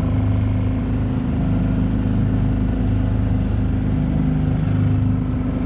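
9.9 hp Selva four-stroke outboard motor running steadily at speed, pushing an aluminium jon boat along.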